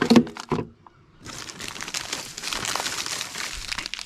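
A few sharp knocks as packs of frozen fishing bait go into a coolbox, then plastic bait packaging crinkling for about two and a half seconds, starting a little over a second in.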